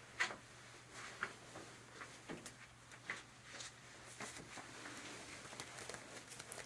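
Faint, irregular light taps and clicks from small objects being handled close to the microphone.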